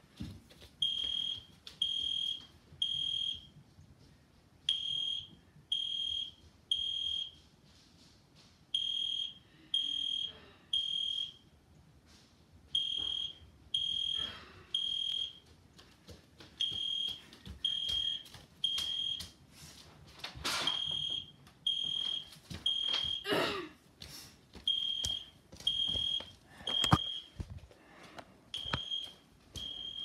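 Fire alarm sounding a high beep in groups of three with a short pause between groups: the temporal-three evacuation signal, set off by a pulled manual pull station. Occasional faint knocks sound between the beeps.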